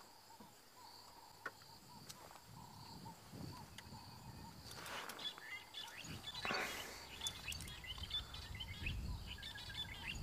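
Quiet African bush ambience: a steady high insect drone, with scattered bird chirps from about halfway on and a low rumble in the second half. No wild dog contact calls are heard.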